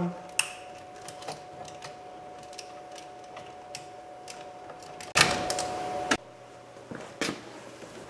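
Plastic clicks and small rattles as the wiring harness connectors are unlatched and pulled off the power window switch pack of a Lincoln Town Car door panel. About five seconds in, a louder scraping rasp lasts about a second and stops suddenly, over a faint steady hum.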